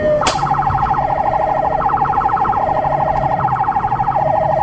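A police car siren's falling wail cuts off with a click just after the start. The siren then switches to a rapid pulsing tone that alternates between two pitches about every three-quarters of a second.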